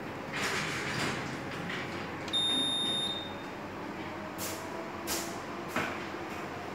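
Leviton U3000 UPS giving one steady high-pitched electronic beep of nearly a second from its built-in buzzer, followed by three short clicks as its front-panel buttons are pressed.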